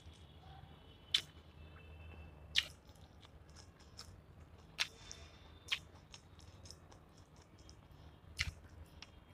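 Close-up eating by hand: chewing of chicken curry and rice with several sharp, wet mouth smacks spaced a second or two apart, and the soft squish of fingers working curry into rice.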